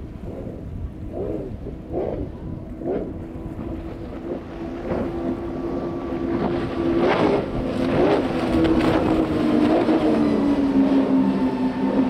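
Fountain center-console boat's quad Mercury 400R outboard engines running at speed, a steady engine drone growing louder as the boat approaches and dropping in pitch as it passes near the end. Repeated slaps of the hull hitting the water and wind on the microphone run underneath.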